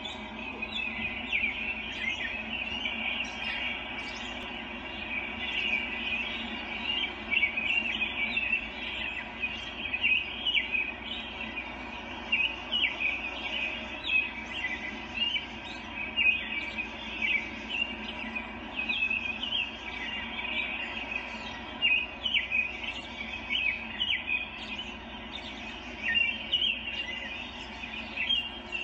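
Small birds chirping continuously in many short, overlapping calls: woodland birdsong from a cat-TV video playing on a television.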